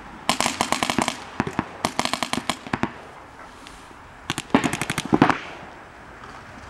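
Paintball markers firing rapid strings of shots, about ten a second, in three bursts; the last burst, about four and a half seconds in, is the loudest.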